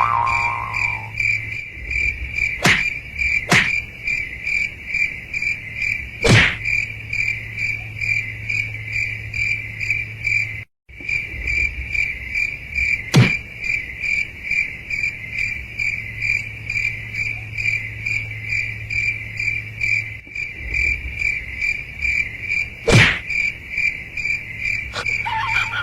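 Steady, evenly pulsing high-pitched chirping of crickets, over a low hum, with a few sharp knocks scattered through.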